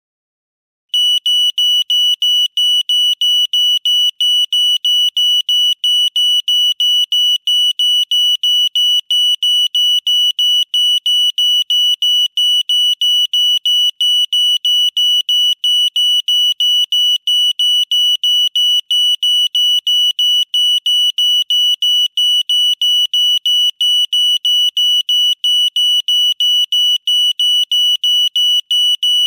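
Older-model 元和 (Yuan He) residential fire alarm sounding: a loud, high-pitched electronic beep repeating in a rapid, even rhythm, starting about a second in.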